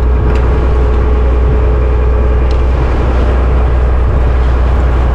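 Motor engine running steadily: a loud low drone with a constant whine above it.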